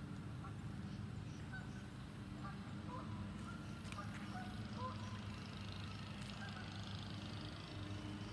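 Outdoor ambience: a steady low hum with scattered short bird calls.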